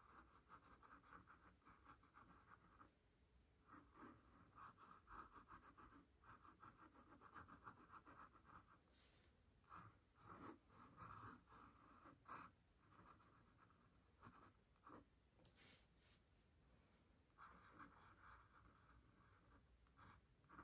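Faint scratching of a pen nib drawing short strokes on sketchbook paper, in runs broken by brief pauses, with a few sharp ticks as the pen touches down.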